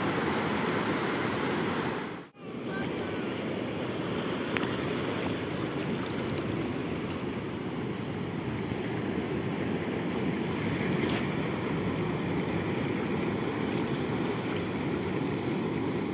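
Surf breaking and washing over a rocky reef shore: a steady rush of waves that cuts out briefly about two seconds in.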